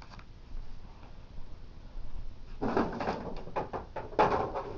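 Cardboard firework cake boxes being handled and shifted: scraping and knocking in two bursts, a little under three seconds in and again near the end.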